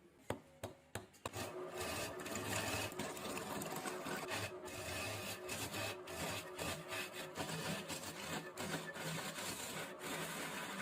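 Wood lathe turning a bed leg, a chisel cutting the spinning wood with a continuous rough scraping over the hum of the lathe. A few sharp clicks come just before the cutting starts, about a second in.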